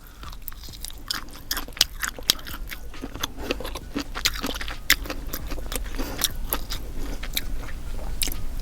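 Close-miked chewing: a person's mouth working on food with many irregular crisp crunching clicks, food she calls crunchy and hard.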